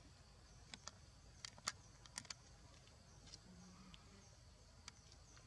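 Near silence with faint outdoor background, broken by a handful of short, sharp clicks in the first two and a half seconds.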